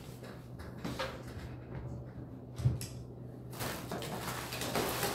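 Faint handling noises: light scattered clicks, one sharper knock about two and a half seconds in, then a soft rushing sound near the end.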